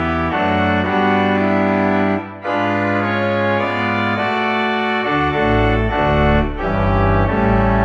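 Organ playing slow held chords, hymn-like, with short breaks between phrases about two seconds in and again near the end.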